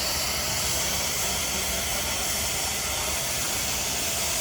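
Steady hiss of steam from a 1912 Case 40 hp steam traction engine, over a low steady rumble.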